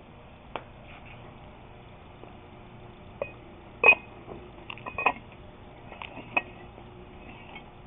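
Scattered light metallic clinks and taps of steel nut splitter parts being handled and fitted together, a few ringing briefly; the sharpest comes about four seconds in, with a quick cluster around five seconds.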